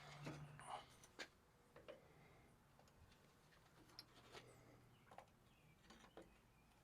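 Near silence with a few faint, scattered ticks and taps.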